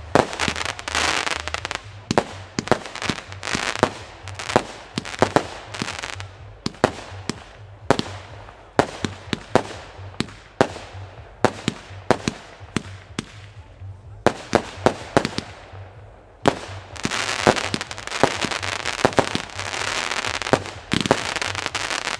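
Klasek 192-shot compound firework cake firing: a steady string of launch thumps and bursting bangs, about two a second. Stretches of dense crackling come at the very start and again from about two-thirds of the way in.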